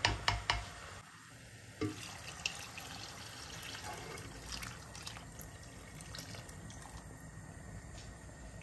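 Water being poured from a jug onto a lentil and vegetable mixture in an enamelled cast-iron pot, a steady splashing pour that covers the lentils. A few sharp knocks at the very start.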